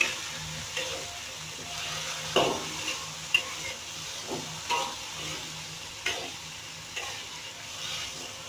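A spatula scraping and knocking against a wok, stirring sliced tempe and jengkol, in irregular strokes about once a second over a light sizzle.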